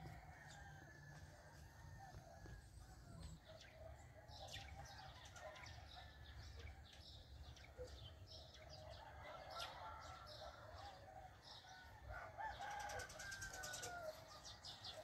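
Faint distant roosters crowing, loudest in the second half, with small birds chirping and a low background rumble.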